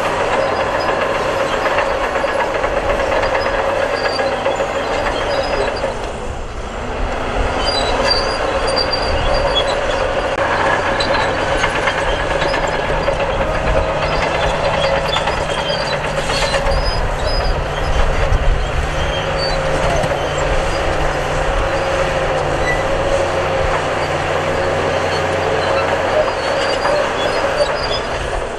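Bulldozer at work: its diesel engine running steadily under load, with metallic squealing and clanking from its crawler tracks. The sound eases off briefly about six seconds in, then carries on.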